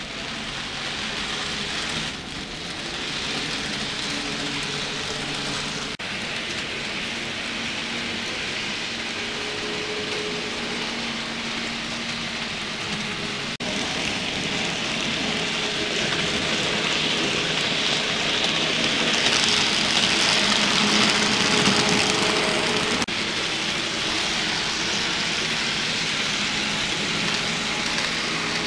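N-scale model trains running on the layout: a steady rushing hiss of small wheels on metal rails with a faint whine from the locomotive motors, growing louder for a few seconds about two thirds of the way through as a train passes close by.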